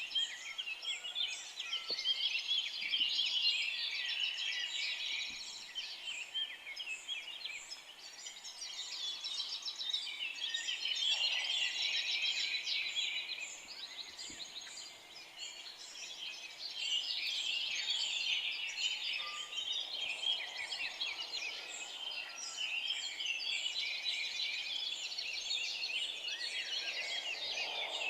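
A chorus of forest songbirds, many short chirping calls overlapping, swelling and easing off every few seconds.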